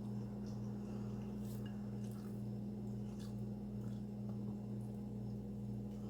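Close-up chewing and mouth sounds of someone eating a chicken quesadilla: soft wet squishes and small clicks scattered through. A steady low hum runs underneath.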